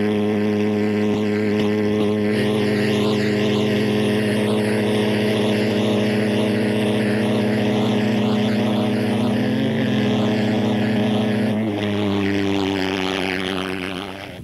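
Pulse-jet engine of a large radio-controlled model jet running at full power: a loud, steady buzzing drone with a low fundamental and a stack of overtones. Its pitch shifts slightly about two seconds and about twelve seconds in, and it fades away over the last two seconds.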